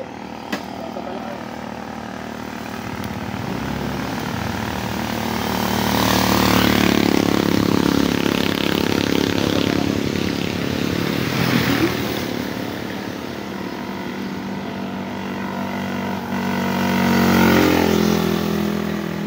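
Motorcycle engine running under way, swelling louder twice, about a third of the way in and again near the end, with the pitch sliding down after the second swell.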